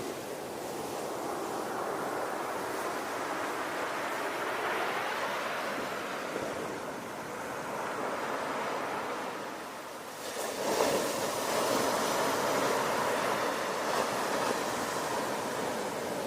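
Ocean surf: waves washing in and receding in slow swells, with a bigger wave breaking about two-thirds of the way through and its loud wash continuing after.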